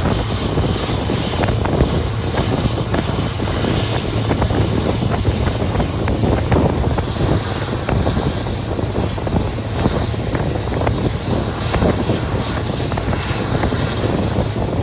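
Passenger train running at speed behind an EMD WDP4 diesel locomotive: the steady low hum of its 16-cylinder two-stroke engine under a dense rattle of wheels on rail and wind noise.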